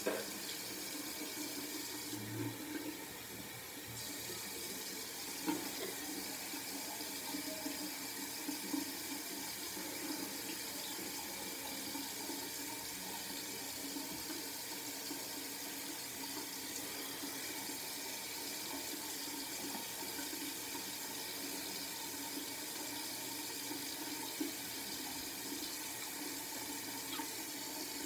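Bathroom sink tap running steadily into the basin during face washing, with a few brief knocks and splashes.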